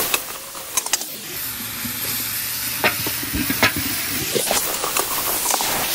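Onion-tomato masala with ginger-garlic paste and green chillies frying in oil in a large aluminium pot, sizzling steadily. A wooden paddle stirs it, knocking and scraping against the pot several times.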